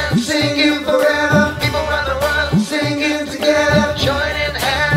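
A man singing an upbeat singalong song to a strummed acoustic guitar, with a bass line underneath.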